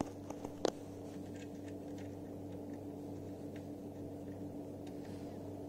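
A steady low hum, with a couple of faint clicks in the first second from a small M5 screw and hammer-head T-nut being handled as the nut is threaded onto the screw.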